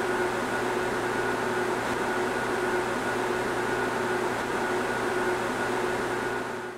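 Steady hum and hiss of running lab equipment, with a few constant tones held throughout; it fades out near the end.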